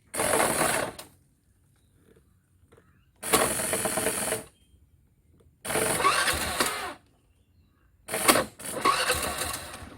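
Mahindra Gusto scooter's electric starter motor cranking in four short bursts, each about a second long, as the start button is pressed hard and let go. It cranks only under heavy pressure, which points to faulty contacts inside the start switch.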